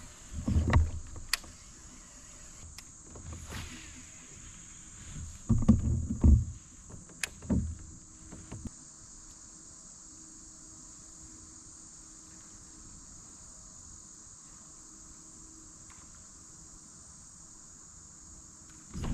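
Kayak moving on the water, with a few low bumps, splashes and knocks of paddling and the hull in the first nine seconds or so. Steady high-pitched insect buzzing runs underneath throughout.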